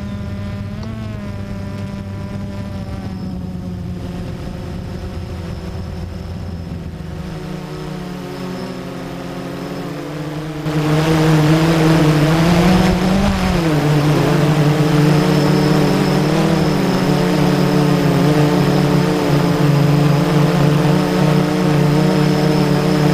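Blade 350 QX3 quadcopter's electric motors and propellers whining in flight, heard from the fur-covered microphone of the camera riding on it. The whine is steady at first, then suddenly gets louder about ten seconds in and stays louder, its pitch wavering a couple of times.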